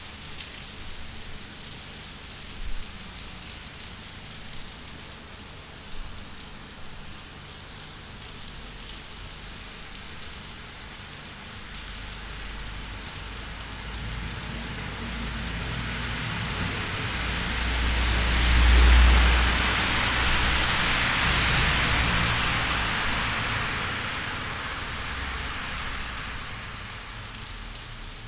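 Steady rain falling and pattering on surfaces, with a few sharp, close drop hits in the first seconds. About halfway through, a louder swell with a low rumble builds up, peaks, and fades away again over roughly fifteen seconds.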